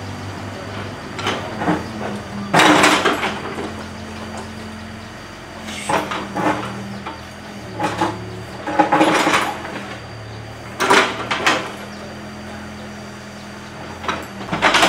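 Hyundai wheeled mini excavator running steadily while its bucket digs into earth and brick rubble, with repeated crunching and clattering scrapes every couple of seconds. The loudest scrape comes about two and a half seconds in.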